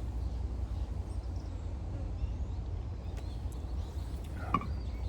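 Outdoor ambience: a steady low rumble, a few faint clicks, and one short chirp-like call near the end.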